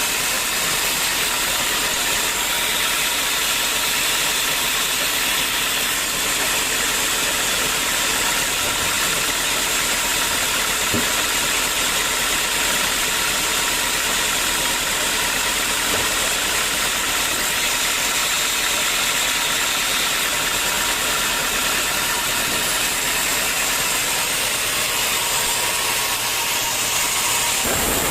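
Sawmill machinery running: a steady, even mechanical noise with a faint steady whine, unchanging throughout.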